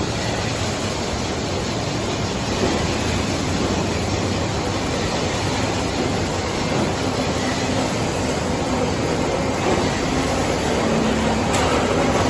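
Industrial bubble washing machine running: a steady rushing noise of aerated, churning water over the machine's motor, with a faint hum coming in during the second half.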